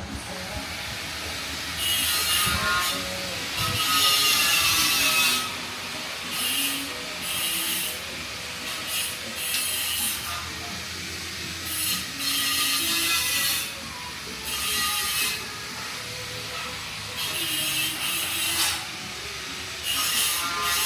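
Irregular rasping, scraping strokes, each about half a second to a second and a half long, with short pauses between.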